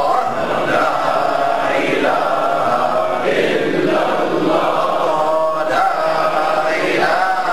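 Men's voices chanting Islamic dhikr together in unison, a short devotional phrase repeated over and over in a steady rhythm.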